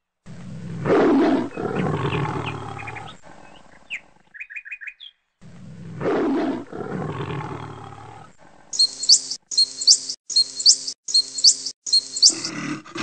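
Edited-in wild animal sound effects, cut in and out abruptly. A long animal call, loud at first and fading over about three seconds, plays twice, with a quick run of bird chirps between. Then five short shrill calls follow in quick succession.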